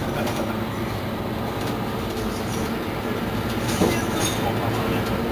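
Mercedes-Benz Citaro C2 city bus running with a steady engine drone and rattling, with a sharp knock about four seconds in.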